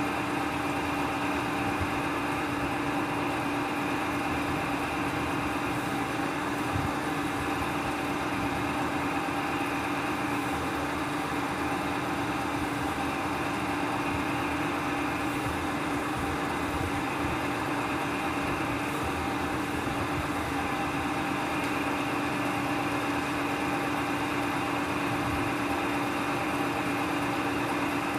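Steady machine hum at one constant pitch, with no separate cutting strokes standing out.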